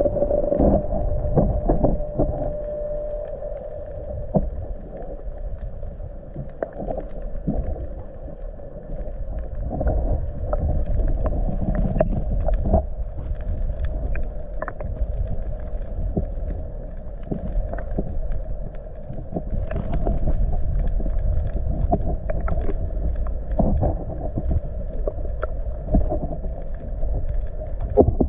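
Muffled water noise picked up by a camera held underwater: a steady low rumble with scattered sharp clicks and knocks.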